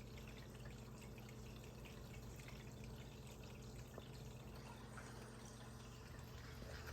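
Faint, steady trickling and dripping of water through an aquarium's external BeanAnimal overflow drains into the sump, over a low steady hum from the return pump. With the gyre pumps off and only the return pump running, the overflow runs quietly at a steady water level.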